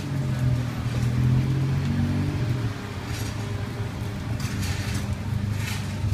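A motor vehicle's engine running close by with a low steady hum. Several short rustling scrapes come in the second half as a styrofoam takeaway box is handled.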